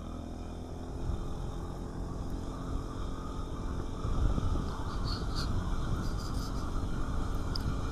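Yamaha Xmax 300 maxi scooter's single-cylinder engine pulling away and accelerating, its note rising gently over the first couple of seconds and then running steadily, with low wind rumble on the microphone.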